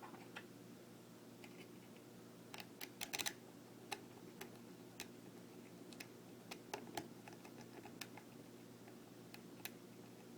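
Hook pick and tension wrench working a Medeco M3 high-security lock: light, irregular metal clicks from the keyway, with a quick run of louder clicks about three seconds in.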